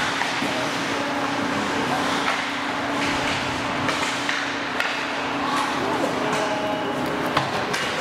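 Ice hockey game sounds in a rink: skates scraping the ice and repeated sharp clacks of sticks and puck, with a sharp knock near the end, over scattered voices and a steady low hum that stops near the end.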